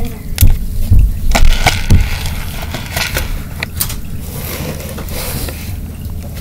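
Close knocks, clicks and scrapes of hands and a hand-held phone rummaging on a floor under furniture while searching for spilled Perler beads: about six sharp knocks in the first four seconds, then softer rustling and scraping.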